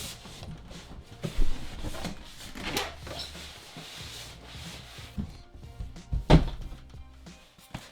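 Cardboard packaging being handled: rubbing and sliding with a few knocks, the loudest about six seconds in, over quiet background music.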